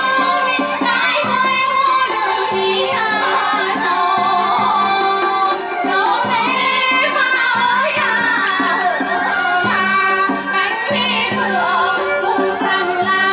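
Women singing a Vietnamese folk song into microphones, the voice wavering with vibrato, accompanied live by traditional Vietnamese instruments.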